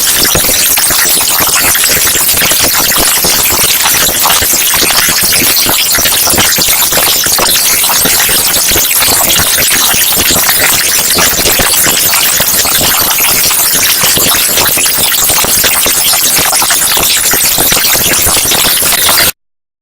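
Very loud, harsh static-like hiss, strongest in the high pitches, held steady without any tone or rhythm, then cutting off suddenly near the end.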